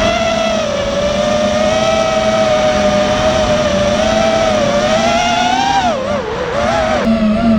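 FPV racing quadcopter's brushless motors whining, the pitch wavering with the throttle. Near the end it drops sharply and then rises again as the throttle is chopped and punched.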